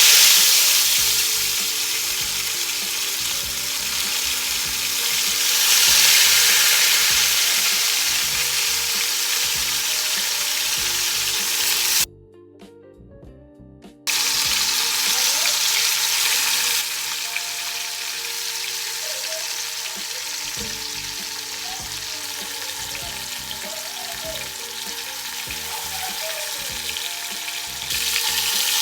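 Seasoned chicken pieces frying in hot oil in a pot, a loud steady sizzle that swells near the start and again about six seconds in. It breaks off abruptly for about two seconds around the middle, then carries on.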